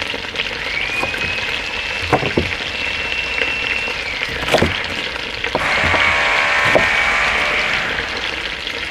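A power drill runs twice, spinning up to a steady high whine for about three seconds, then again, louder, for about two and a half seconds. Underneath it, a knife chops an onion on a wooden cutting board, and chicken pieces sizzle as they sear in a Dutch oven.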